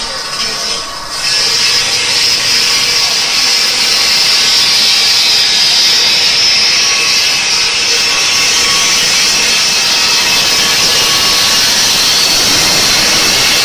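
Large diamond circular blade of a gantry bridge saw cutting through a row of granite blocks with water spray: a steady, loud, high grinding hiss that settles to full level about a second in.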